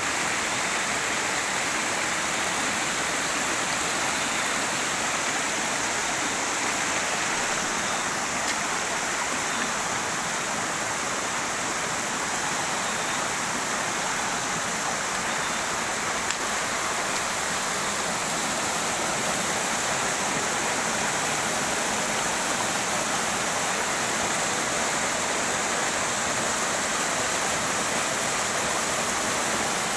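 Steady rushing of a rocky hill stream flowing over stones.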